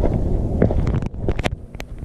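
Wind buffeting the microphone: a heavy low rumble that eases about a second in, with several sharp clicks.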